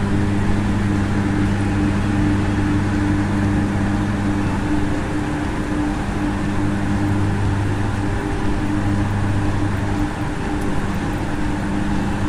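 Running turbine-generator units of a pumped-storage hydroelectric plant heard in the machine hall: a steady deep hum with a couple of steady higher tones above it, over a constant mechanical rush.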